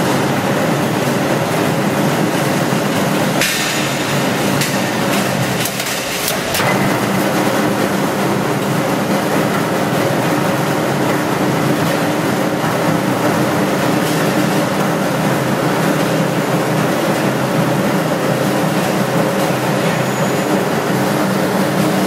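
Concrete vibrator paver running: a steady mechanical drone, with a few sharp knocks about four to six seconds in.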